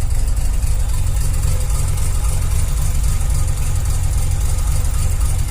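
Mazda RX-7 FD3S's twin-turbo 13B-REW rotary engine idling roughly, a steady, loud low note with an uneven, choppy texture.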